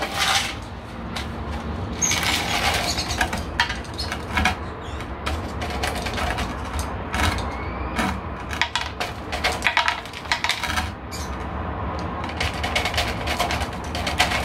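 Small stones clattering as they are scooped with a plastic cup and poured onto the soil of a small terracotta pot as a top dressing: a run of light clicks and rattles.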